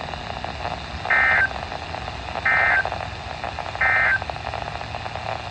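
Emergency Alert System end-of-message code from a NOAA Weather Radio broadcast: three short bursts of warbling digital data tones, about a second and a half apart, signalling that the special marine warning has ended. A steady background hiss runs underneath.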